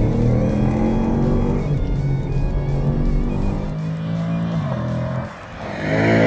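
2016 Chevrolet Camaro's engine revving hard on a track lap, its pitch climbing and then dropping back at each gear change, rising again near the end. Background music plays underneath.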